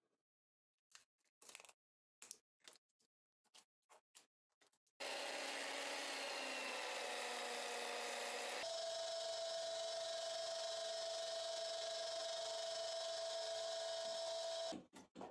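A few short clipped knocks of wood being handled, then a handheld belt sander clamped upside down in a vise runs steadily as a piece of reclaimed cedar is pressed onto the belt. About three and a half seconds later the sound switches abruptly to a different steady motor sound with a high steady whine, lasting about six seconds before cutting off.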